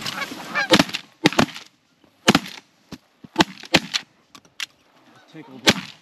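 A volley of shotgun blasts from several hunters, about eight shots fired in quick succession, some nearly overlapping, over Canada geese honking overhead in the first second.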